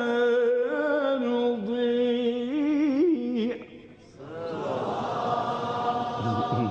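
A male Quran reciter's voice holding a long, ornamented note in the melodic mujawwad style, wavering and gliding before it breaks off about three and a half seconds in. After a brief lull, many voices rise together in overlapping calls, the listeners responding to the recitation.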